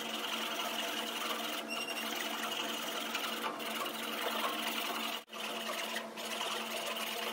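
Hand saw cutting back and forth in mahogany, deepening the spiral grooves of a barley-twist blank, over a steady low hum. The sound breaks off for an instant about five seconds in.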